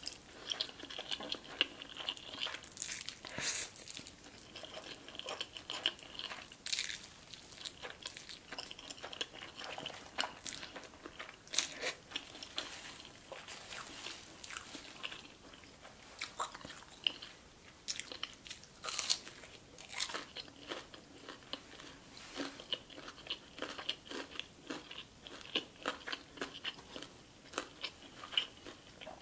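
A person chewing a big mouthful of spicy ramen noodles close to the microphone, with many short, wet mouth clicks.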